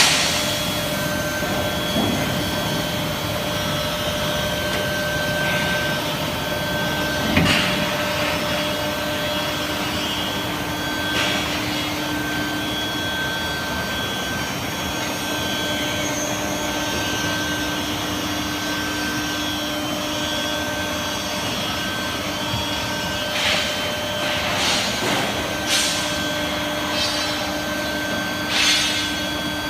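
Industrial induction furnace running: a steady noisy hum with faint steady whining tones, broken now and then by short knocks.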